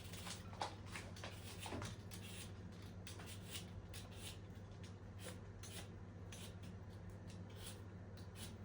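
Soft rustling from something being handled by hand: a string of short, quick rustles, busiest in the first couple of seconds, over a low steady hum.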